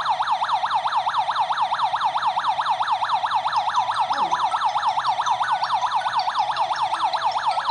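Home security alarm siren going off, triggered by the door sensor while the system is armed: a loud electronic siren sweeping rapidly up and down in pitch, about four or five times a second.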